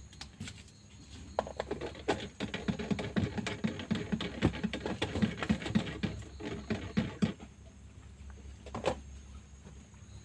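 Spoon stirring coffee in a cup: rapid clinking, about four or five strokes a second, for several seconds from about a second and a half in, then a single knock near the end.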